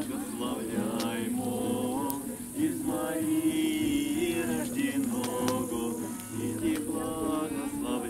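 A small group singing a song together to a strummed acoustic guitar.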